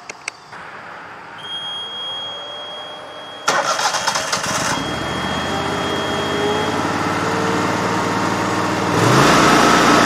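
Kohler V-twin engine of a Boxer 320 mini skid steer starting up about three and a half seconds in and settling into a steady run, then revving up near the end.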